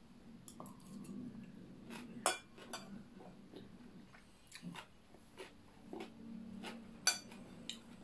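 Metal fork and spoon clinking and scraping against china plates, in scattered sharp clinks, the loudest a little after two seconds and about seven seconds in, with chewing between them.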